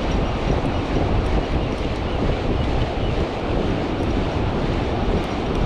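Wind buffeting the microphone in a steady rumble, with the wash of sea surf behind it.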